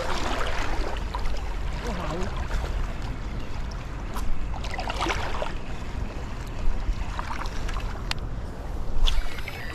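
Steady wind rushing on the microphone, with a few scattered sharp clicks and taps.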